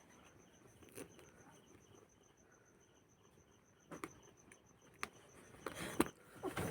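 Faint, steady high-pitched chirping of a cricket, with a few soft clicks scattered through and clustered near the end.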